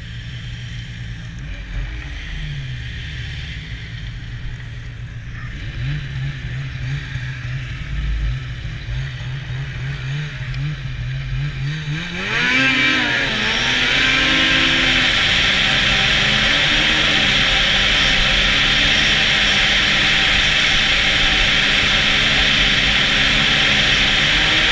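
Snowmobile engine running at low speed, then revving up about halfway through as the sled accelerates. It holds a steady higher speed with a loud, even rushing noise over the engine.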